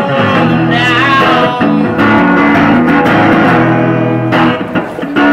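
Live rock band playing: electric guitar and bass guitar with chords held under a bending lead line.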